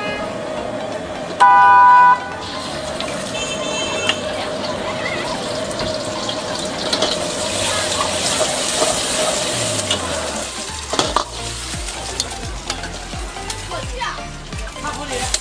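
Egg frying and sizzling in hot oil in a wok, with a metal ladle stirring and scraping against the pan, and knocks of the ladle near the end. About one and a half seconds in, a loud horn sounds for under a second, the loudest thing heard.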